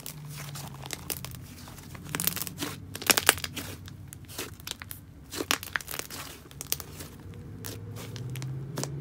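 Thick, dense clay slime being stretched and kneaded by hand, giving a run of sharp sticky clicks and pops as it pulls apart and is pressed together, busiest about two to three and a half seconds in.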